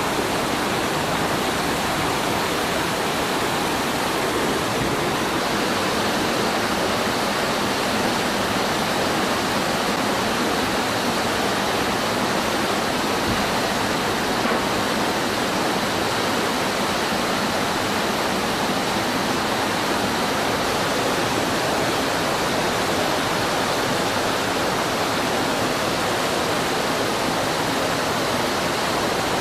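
Steady rush of whitewater pouring over waterfalls and rock cascades on a steep creek.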